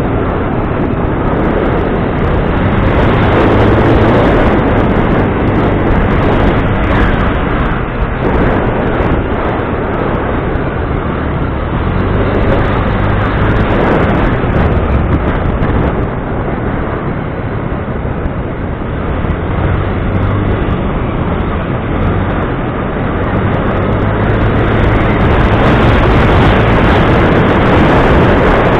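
A vehicle engine running steadily under a loud, even rushing noise.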